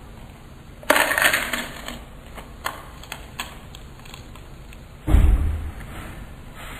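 Doritos tortilla chips crunched while being chewed: a loud crisp crunch about a second in, a few small crackles after it, then a second loud, deeper-sounding crunch about five seconds in.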